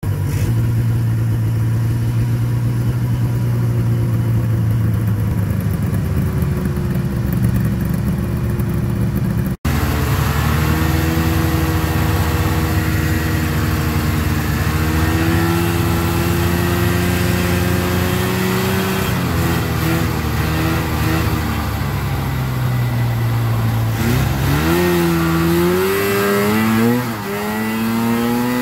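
Vintage two-stroke snowmobile engine running while riding, its pitch holding fairly steady and then dipping and rising as the throttle is eased off and opened again near the end. A brief dropout breaks the sound about ten seconds in.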